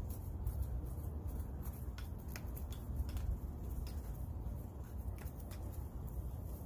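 A thin wooden stick scraping and poking through potting soil in a plastic pot, stirring in fertilizer: scattered small scratches and ticks over a steady low rumble.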